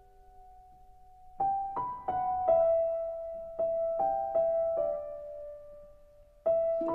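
Background music: a slow solo piano melody. A held note fades away at the start, then single notes are struck one after another from about a second and a half in, and a new chord comes in near the end.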